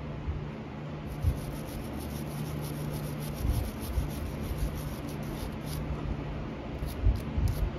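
A small wire brush scrubbing the metal ring terminal of a battery ground cable in rapid, even scratching strokes, about five a second. The strokes start about a second in and stop near the end. The brushing cleans the terminal's contact face for a better connection.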